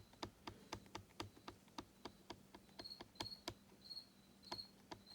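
A rubber stamp being tapped over and over on an ink pad to re-ink it: a faint, quick run of light taps, about four a second.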